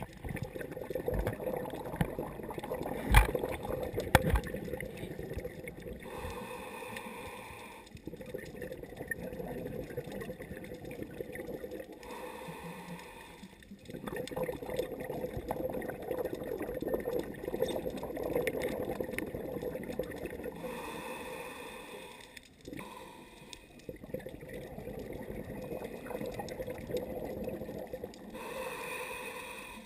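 A scuba diver breathing through a regulator, heard underwater: a short hiss of inhalation every seven or eight seconds, with rushing, bubbling exhalation between them. A couple of sharp knocks about three seconds in.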